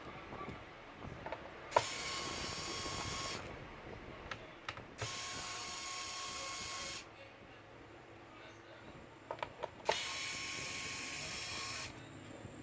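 Small cordless electric screwdriver unscrewing the bottom-cover screws of a Lenovo IdeaPad 110 laptop: the motor whirs in three runs of about two seconds each, each starting with a click, with small clicks of the bit and screws in between.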